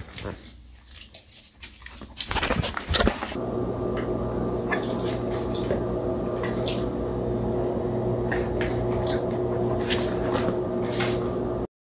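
A dog moving about close by, with scattered clicks and rustles. From about three seconds in, a steady hum runs underneath until the sound cuts off suddenly near the end.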